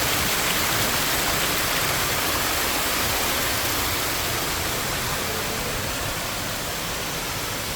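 Falling water rushing steadily, slowly growing fainter.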